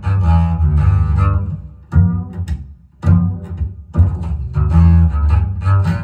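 A jazz recording led by double bass, played back over hi-fi loudspeakers in the room. The bass notes break off for a moment near the middle and then come back in.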